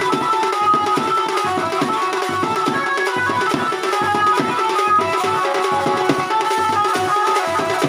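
Band-baja music: a bright melody line of short held notes over a fast, steady beat on drums.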